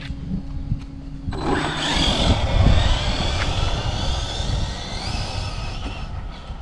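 Electric motor and drivetrain of a 1:10-scale RC drag truck whining hard as it launches about a second and a half in, the pitch climbing as it accelerates on a speed-run pass, over a rush of tyre and wind noise. It fades out near the end.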